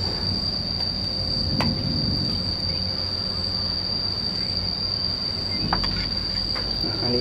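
Steady, high-pitched insect drone, one unbroken tone, over a low background rumble, with a few faint clicks.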